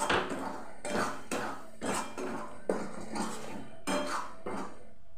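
Metal spatula scraping and stirring a masala paste around a steel kadai in repeated strokes, the paste of onion, garlic, ginger and chilli being fried down.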